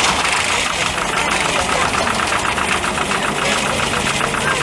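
Small diesel locomotive's engine chugging with a rapid, even beat as it hauls a minimum-gauge passenger train, heard from one of the carriages along with the running noise of the wheels on the track.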